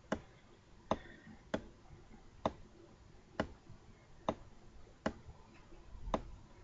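A series of sharp, short clicks, about one a second, eight in all, slightly uneven in spacing.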